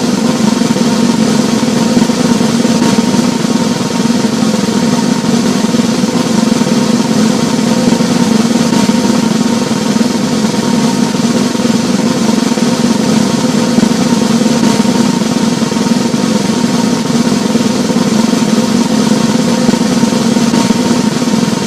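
Snare drum roll, a fast, even, continuous roll that holds at one loudness without building or stopping.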